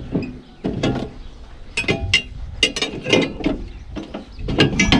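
Hand tool clicking and clinking on the metal front drive shaft joint of a U445 DT 4x4 tractor as it is being uncoupled. It is a run of irregular sharp metallic clicks with short ringing, thickest about two seconds in and again near the end.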